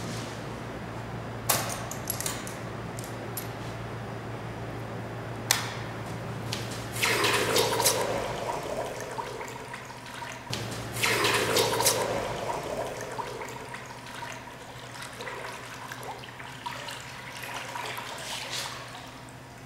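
Hot tool-steel part quenched in a bucket of water, hissing and bubbling in two loud surges about seven and eleven seconds in, then dying away as the steel cools. A couple of sharp metal clicks come earlier, over a steady low hum.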